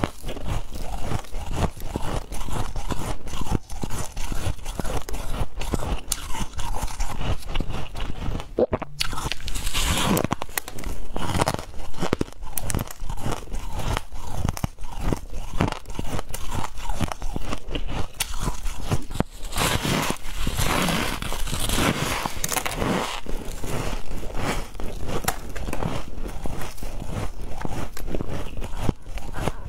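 Close-up chewing of a mouthful of freezer frost: dense, rapid crunching. Two louder stretches come, one about a third of the way in and one just past the middle.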